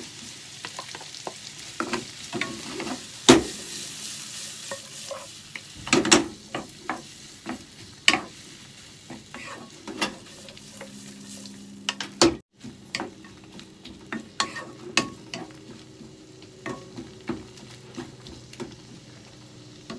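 Sausage, onion and mushrooms sizzling in a frying pan while a wooden spatula stirs them, with frequent knocks and scrapes of the spatula against the pan. The loudest knocks come about three, six and eight seconds in.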